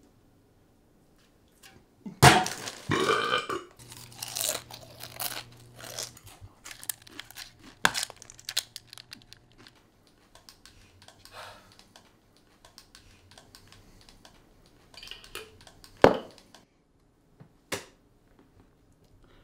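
A man lets out a long, loud burp about two seconds in, right after gulping from a can. It is followed by scattered small clicks and crunching, with sharp knocks about eight and sixteen seconds in.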